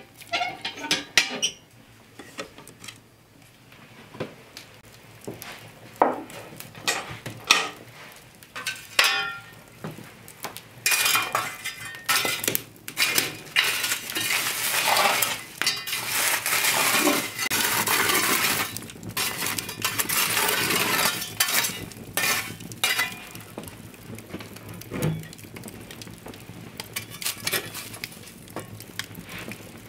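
Iron hearth tools at an open wood fire: scattered sharp metal clinks and knocks, then a long stretch of dense scraping and rattling as embers and burning logs are raked about. Lighter clinks follow near the end as tongs pull coals under an iron trivet.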